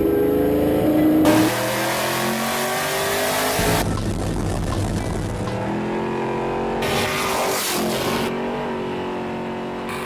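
High-powered drag race car engine revving, its pitch rising and falling, with two stretches of loud hissing noise over the engine, one about a second in and one near the end.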